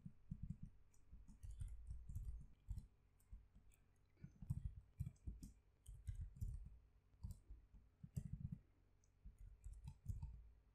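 Faint computer keyboard typing: irregular keystroke clicks in quick runs with short pauses between them.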